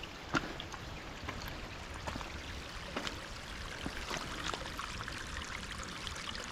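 Shallow stream water running and trickling down a wet hillside footpath, a steady hiss flecked with scattered small splashes and ticks.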